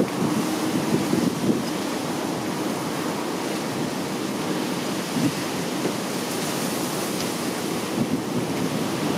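Steady rushing noise that stays even throughout, with no sound from the resting kittens.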